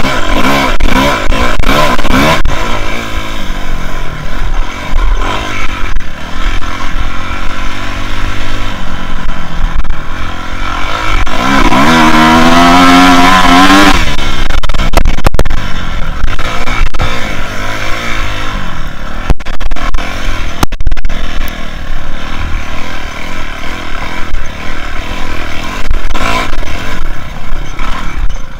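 2006 Kawasaki KX250F's four-stroke single-cylinder engine running as the bike is ridden, its pitch going up and down with the throttle. About twelve seconds in it revs hard, rising and falling over two seconds.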